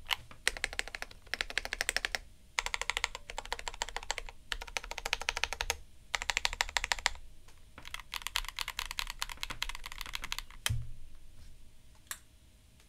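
Typing on a Royal Kludge RKG68 mechanical keyboard with KTT Red Wine linear switches and Aifei WoB keycaps: fast runs of keystroke clacks in bursts, with short pauses between them. Typing stops with a heavier thump about eleven seconds in, and one lone keystroke follows near the end.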